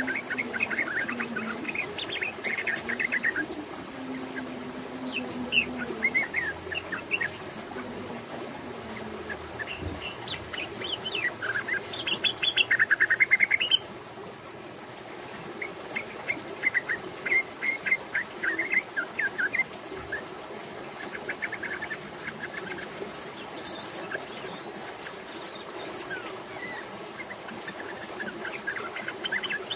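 Female yellow-vented bulbul (trucukan) giving its rapid chattering 'ropel' call in repeated bursts of quick notes. The loudest, longest burst comes about twelve to thirteen seconds in.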